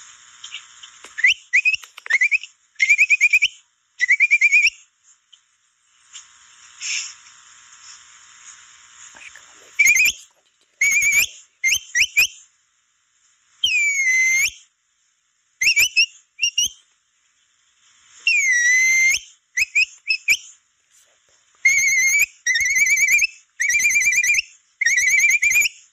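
Capybara call (pio) sounded in a series of short whistled chirps and trills, some dipping and then rising in pitch, with pauses between them. A faint steady hiss runs through roughly the first third.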